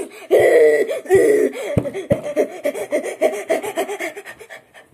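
A boy laughing loudly in quick repeated bursts that weaken and trail off near the end, with two dull thumps about two seconds in.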